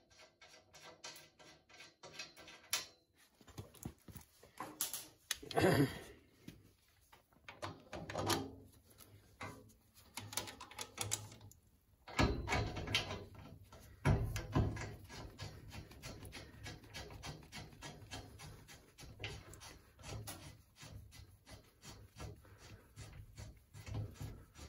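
Metal clicks, knocks and scraping as a coilover shock absorber's top eye is offered up to a steel shock mount on a tube chassis and a bolt is pushed through. The taps are short and irregular, with a few louder spells of scraping and handling.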